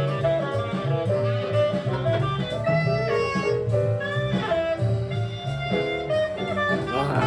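Recorded small-group jazz: a saxophone plays a melodic line of held and moving notes over a walking double bass and drums.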